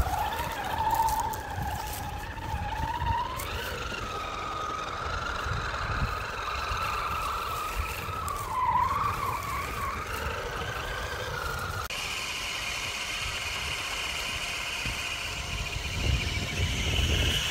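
Radio-controlled car driving, its motor whine rising and falling in pitch with the throttle over a rough low rumble. About twelve seconds in, the sound changes suddenly to a steadier, higher whine.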